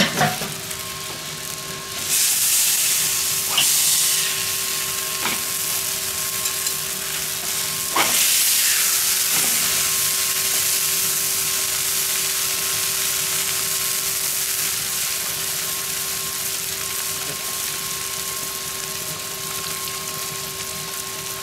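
Beef burger patties sizzling on a grill mat over charcoal in a kettle grill. The sizzle jumps louder about two seconds in and again about eight seconds in, with a few sharp clicks of a spatula, and a steady hum underneath.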